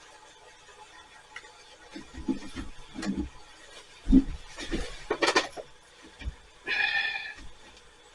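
Light knocks, clicks and clinks of a small metal tea infuser being handled and hooked onto a cup, with a brief high squeak about seven seconds in.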